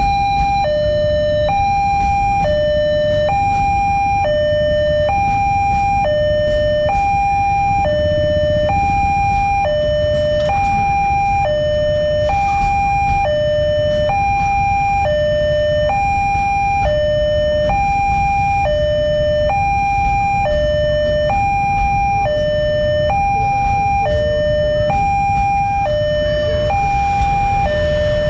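Railway level-crossing warning alarm sounding its electronic two-tone signal, switching between a high and a low tone, each held about half a second. Underneath is the low rumble of a container freight train passing over the crossing.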